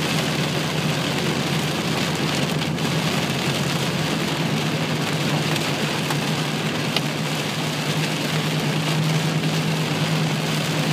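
Heavy rain on a moving car together with the hiss of tyres on the wet road, heard inside the cabin over a steady low engine hum.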